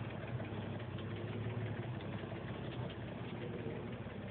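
Engine of a truck-mounted crane running steadily, a low even hum, while the crane is being worked.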